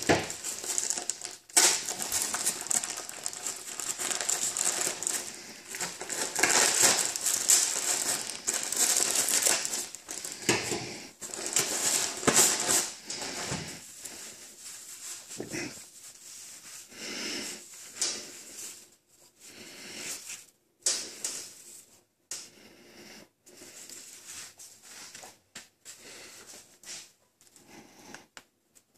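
Plastic mailer bag crinkling and rustling loudly as it is handled and opened, then softer, intermittent rustling as a coil of braided cord is handled and unwound.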